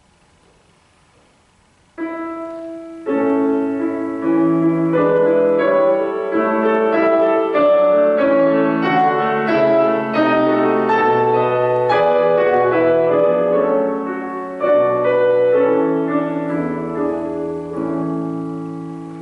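Steinway grand piano playing the introduction to an art song, alone before the voice comes in. It enters suddenly about two seconds in and dies away near the end.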